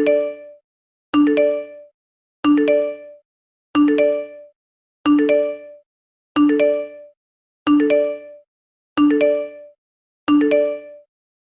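iPhone text message alert tone, a short chime of three quickly rising bell-like notes. It repeats about every 1.3 seconds, nine times over.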